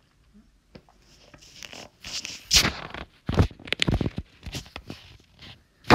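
Irregular rustling and scraping handling noises, a string of short crackly strokes of uneven loudness starting about a second and a half in.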